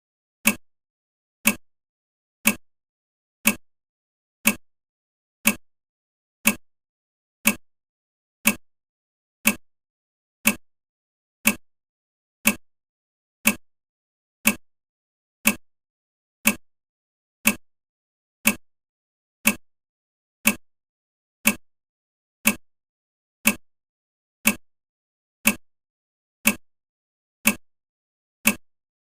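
A countdown timer ticking once a second, each tick a short, sharp clock-like click that dies away at once, steady and even throughout.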